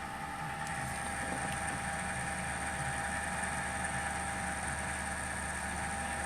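Desktop PC running with a steady hum and a few constant whining tones from its fans, pump and liquid-cooling radiator. The owner traces the rumbling vibration to the radiator.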